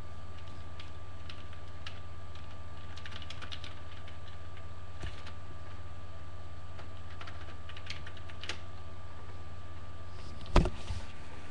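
Light, scattered clicks of typing on a laptop keyboard over a steady electrical hum, with one loud thump near the end.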